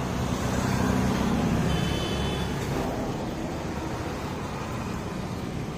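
Road traffic noise: a motor vehicle's engine rumble swells over the first second or so and then eases off. A short high tone sounds about two seconds in.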